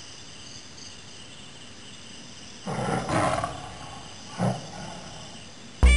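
A lion roaring: one longer roar about halfway through and a short second one a second later, over faint hiss. Loud electronic music starts at the very end.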